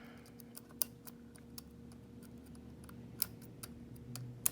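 Small metal clicks and ticks of a lock pick working the pins inside a pin-tumbler lock cylinder, irregular, with three sharper clicks among many faint ones, over a faint steady hum.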